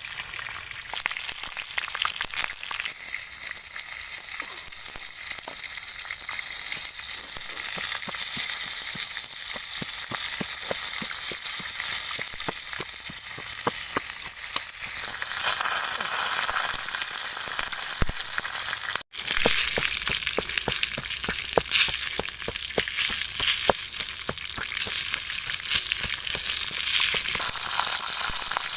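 Food frying in hot oil in a pan: a steady sizzle with many small crackles and pops, broken by a brief gap partway through.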